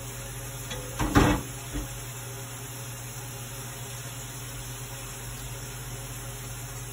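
Steady low kitchen hum with one short, loud knock about a second in.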